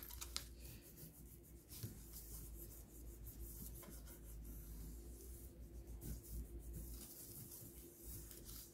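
Bone folder rubbing over freshly glued paper on a card structure, pressing it flat so the glue takes: a faint, scratchy rub that comes and goes.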